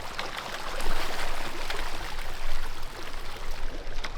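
Pond water splashing and churning as a crowd of large fish thrash at the surface for fish food, a steady wash of small irregular splashes.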